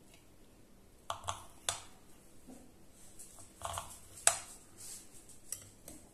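Table knife cutting through a pie's biscuit crust, clicking and scraping against the fluted metal tart tin. It comes as a handful of sharp clicks spread across a few seconds, the loudest a little past four seconds in.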